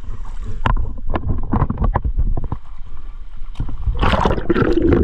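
Water splashing and sloshing as a diver wades into shallow, muddy river water, with irregular knocks and splashes. About four seconds in, a loud rush of bubbling and gurgling sets in as he goes under.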